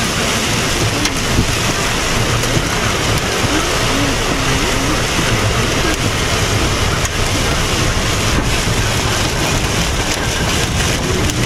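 Heavy rain pelting a car's roof and windshield, heard from inside the moving car as a steady, dense noise.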